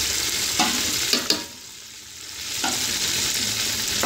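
Fried onions and spices sizzling in hot oil in a steel pot, a steady hiss, with a few light knocks from about half a second in to a second and a half in. The sizzle dips for about a second in the middle, then returns.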